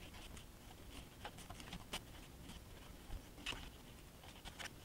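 Black Sharpie felt-tip marker drawn freehand over lines on card, making faint, irregular, scratchy strokes.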